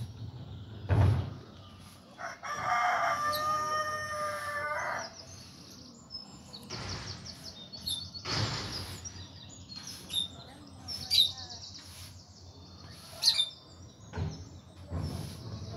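Birds calling: one long, loud call of about two and a half seconds starting a couple of seconds in, with many short high chirps from small birds throughout. A few sharp clicks stand out.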